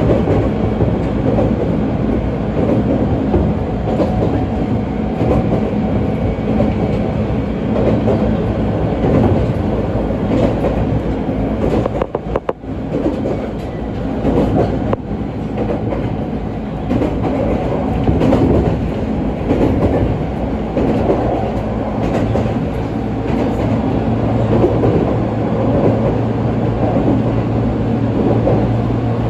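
ET127-series electric train running along the line, heard from inside the carriage: steady running noise of the wheels on the rails, with a brief dip about twelve seconds in and a steady low hum over the last few seconds.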